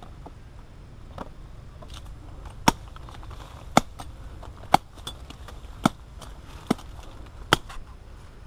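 A knife hacking at the woody stem of a sapling: six sharp chops about a second apart.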